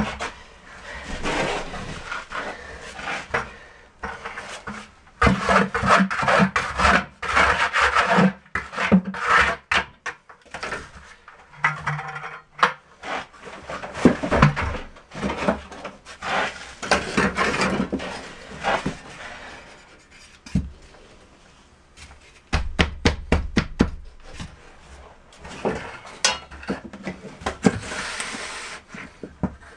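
Sand-cement deck mud being spread and packed in a shower pan with a trowel and a wooden float. It makes irregular gritty scraping and rubbing strokes, and in the last third a quick run of sharp taps and knocks.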